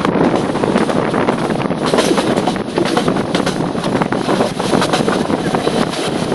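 Nagaland Express passenger train running along the line, heard from aboard: a loud, steady rush of wheel and rail noise with rapid clicks and rattles, and wind buffeting the microphone.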